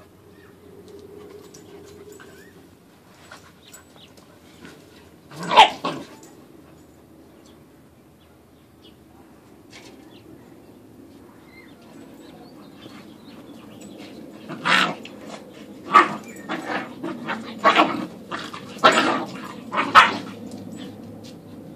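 Puppies barking while they play-fight: a single bark about five seconds in, then a quick run of about six barks in the last third.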